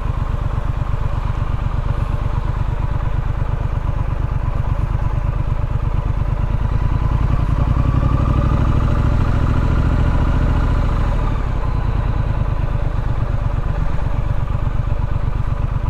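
Triumph Street Scrambler's 900 cc parallel-twin engine running steadily. Its note rises about halfway through, then settles back a few seconds later.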